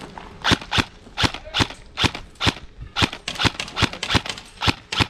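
Quick footsteps on a concrete path, a sharp step about every 0.4 seconds in an even running rhythm.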